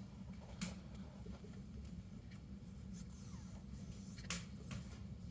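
Faint rustling of vinyl fork graphics being handled and pressed on, with two short sharp clicks, one about half a second in and one about four seconds in, over a low steady hum.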